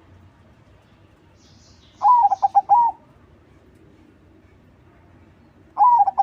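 A crossbred zebra dove (perkutut crossing) cooing. It gives one full phrase about two seconds in: a swooping opening note, then a quick run of short clipped notes. It starts the same phrase again near the end.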